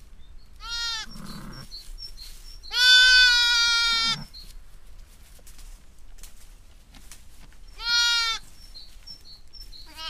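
Newborn lambs bleating in high-pitched calls: a short one about half a second in, a long, loud one of over a second around the three-second mark, a short one near eight seconds, and another starting at the very end.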